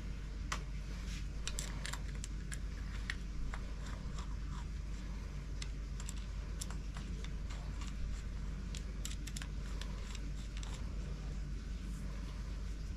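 Screwdriver driving small metal screws into a Mercury outboard carburetor's primer assembly: scattered light clicks and scrapes of metal on metal, coming in clusters, over a steady low hum.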